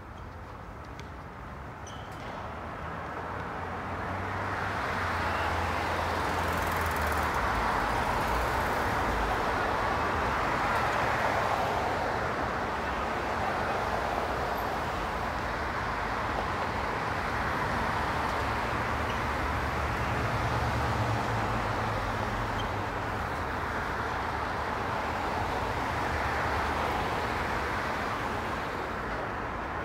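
Street traffic: cars passing on a multi-lane road in a continuous wash of tyre and engine noise. It builds over the first few seconds and then stays steady.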